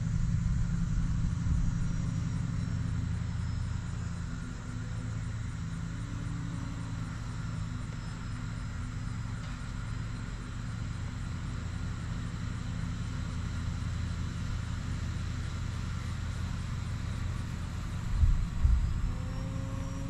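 Steady rumble of airflow over a microphone mounted on an E-flite Valiant RC plane in flight, with a faint whine from its brushless electric motor and propeller that drifts in pitch. A few louder wind buffets come near the end.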